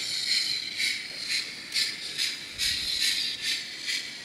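The sound decoder of a Hornby TT-scale model steam locomotive, the blue streamliner Falcon, playing its running sound as the model runs slowly: steam chuffs about twice a second over a steady hiss.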